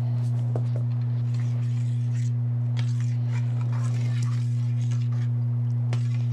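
Steady low electrical hum, with faint scrapes of a spoon stirring soup in a stainless steel pot.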